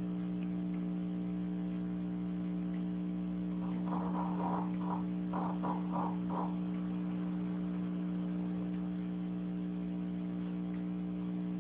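A sleeping pet snoring: one rattling snore, a string of short pulses lasting about two and a half seconds, starts about four seconds in. It sits over a steady electrical hum.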